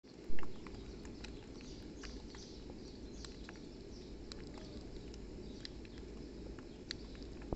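Eggs frying in a pot on a gas camp stove: scattered small crackles and pops of sizzling fat over a steady low rush, with a loud thump about half a second in.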